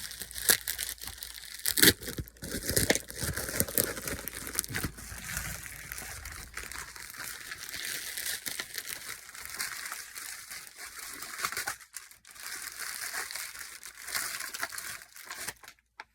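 Packaging crinkling and tearing as a pistol grip sleeve is unwrapped, with a few sharp snaps in the first couple of seconds.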